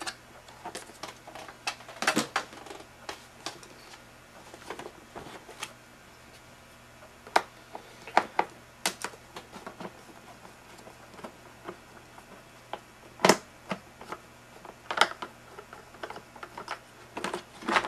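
Hands handling the plastic parts of a Vacmaster VZA306P tub vacuum's motor head as its HEPA filter is pulled out and the head is turned over: irregular plastic clicks, taps and knocks, the loudest about thirteen seconds in.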